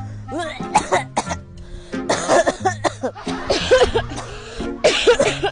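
People coughing over and over in harsh, noisy fits, over steady background music.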